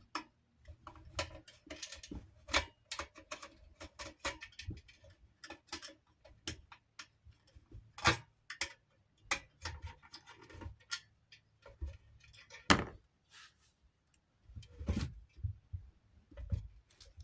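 Screws and metal parts being handled while a ceiling fan's flywheel is unscrewed and refitted: irregular small clicks and taps, with a few louder knocks about 8 and 13 seconds in and a cluster around 15 seconds.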